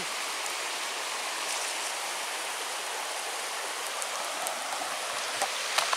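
A river rushing: a steady, even hiss of flowing water, with a few faint clicks near the end.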